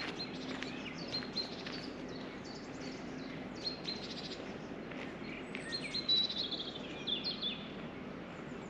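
Small birds chirping and singing on and off, with a busier run of song about six seconds in, over a steady low outdoor background.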